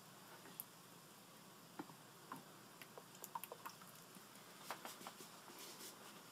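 Faint, scattered clicks and light taps of a soldering iron being handled at its stand and sponge, a few at a time, most of them after the first two seconds.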